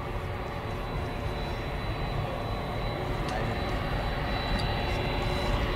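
Jet engines of a twin-engine Delta airliner running with a steady, even rumble that slowly grows louder.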